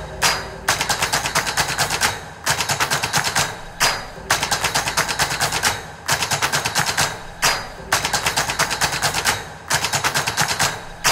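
Repeated bursts of rapid machine-gun-style fire, each about a second and a half long at roughly ten shots a second, with short gaps between bursts.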